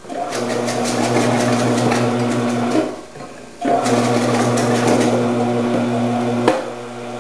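Omcan HLC 300 commercial vegetable processor's motor running with a steady hum and a rough cutting noise as peppers are pushed through its slicing disc. It stops about three seconds in and starts again a moment later, then runs quieter after a sharp click near the end.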